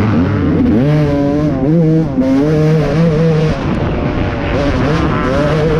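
Off-road race engine at racing throttle, its pitch rising and falling again and again as the rider works the throttle and gears, heard from on board.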